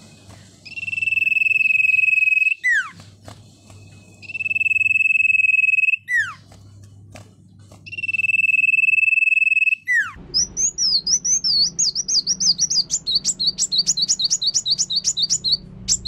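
Caged sirtu, a small yellow songbird, singing in the iora-like 'nyipoh' style: three long, steady high whistles of about two seconds each, each ending in a quick downward slide. From about ten seconds in, it switches to a fast run of sharp chirps.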